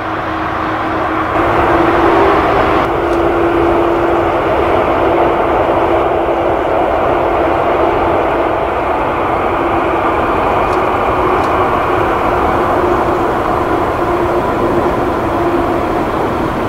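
Jet engines of a Boeing 747-400 freighter running at taxi power: a steady rush with a steady whine running through it.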